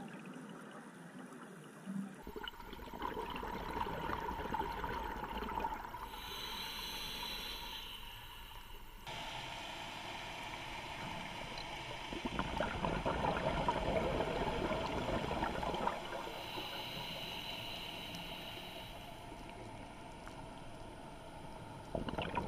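Underwater sound of a scuba diver breathing through a regulator: a hiss on each inhalation and bubbling gurgles on each exhalation, over steady water noise. The sound swells and fades every few seconds and shifts abruptly where the footage is cut.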